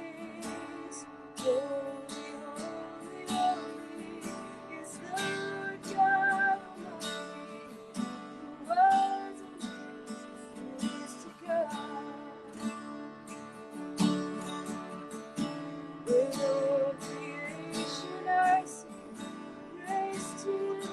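Slow worship music: an acoustic guitar strummed, with a woman's voice singing drawn-out, wavering notes over it.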